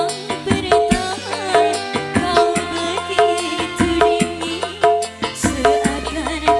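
Dangdut band music: a steady beat on kendang hand drums under a repeating melody line, with no singing.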